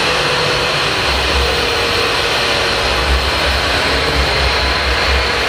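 Electric angle grinder fitted with a wire brush, running steadily against a steel motorcycle exhaust pipe and scouring off rust and old paint.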